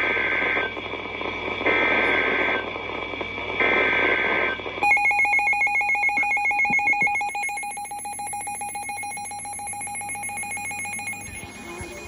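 Emergency Alert System SAME header from NOAA Weather Radio: three short bursts of warbling data tones about a second apart. About five seconds in, the steady 1050 Hz weather-radio warning alarm tone follows, fading a little and cutting off just before the end. Together they signal the start of a severe thunderstorm warning.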